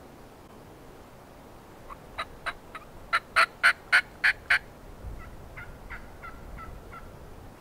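Wild turkey yelping: a run of about nine short, loud yelps at about three or four a second, followed by a fainter run of shorter notes.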